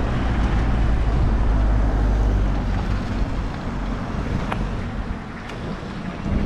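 Wind buffeting the microphone of a camera riding on a moving bicycle: a heavy low rumble that eases a little past halfway, with a couple of light clicks.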